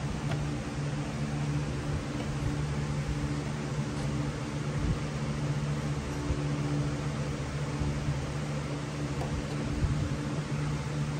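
A small motor running steadily with a constant low hum and no change in speed.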